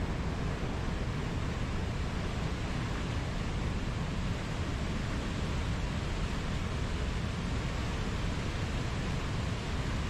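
Mountain river rapids: whitewater rushing steadily, an even noise without a break.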